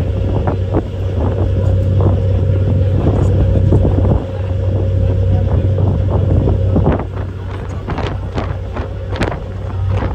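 Ferry underway: the boat's engines give a steady low drone while wind buffets the microphone in irregular gusts.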